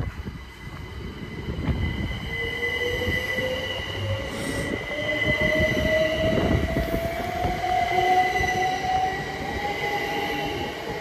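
Electric multiple-unit passenger train pulling away, its traction motors giving a whine that climbs slowly and steadily in pitch as it accelerates, over a steady high electrical whine.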